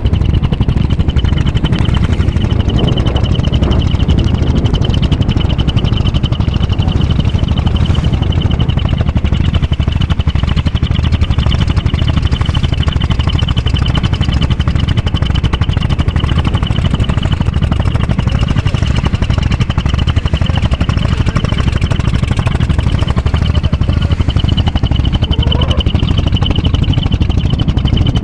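A boat engine running steadily and loudly, heard from on board, with a rapid even pulse and a steady high whine on top.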